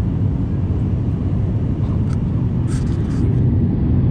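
Steady low rumble of an Airbus A350's cabin noise: engines and airflow heard from inside the aircraft, with a few faint clicks about two to three seconds in.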